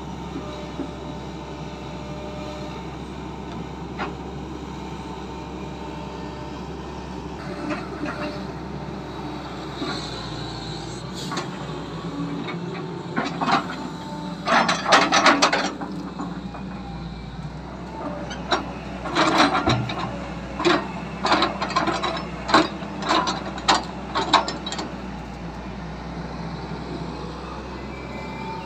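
XCMG XE135B excavator's diesel engine running steadily while its grapple handles rubberwood logs. About halfway through come two bouts of loud wooden knocks and clatter as logs are gripped, bumped together and set down.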